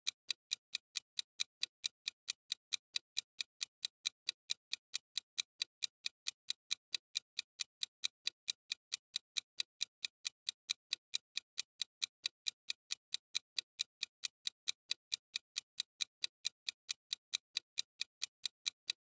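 Ticking clock sound effect for a countdown timer: sharp, evenly spaced ticks at about four a second.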